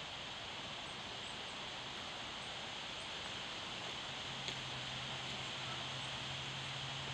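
Outdoor ambience: a steady background hiss with faint, high chirps repeating about twice a second. A low steady hum joins about four seconds in.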